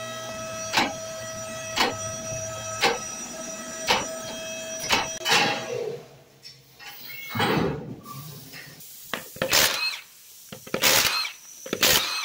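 A steady hum with a sharp thump about once a second, then several short bursts from a Milwaukee Fuel cordless impact wrench spinning lug nuts off a wheel, a second or two apart.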